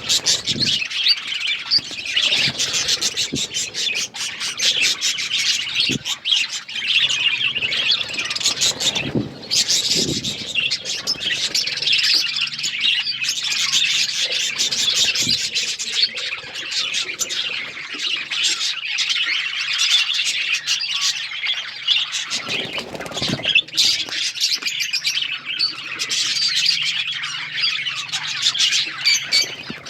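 A flock of budgerigars chattering, many birds chirping and warbling at once in a dense, continuous stream of short high calls.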